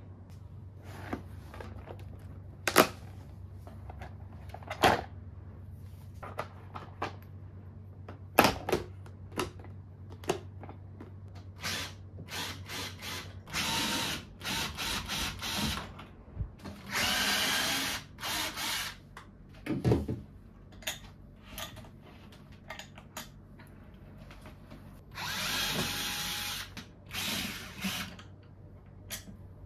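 Power drill running in several short bursts of one to two seconds, mostly in the second half, among many sharp knocks and clatter from handled wooden furniture parts.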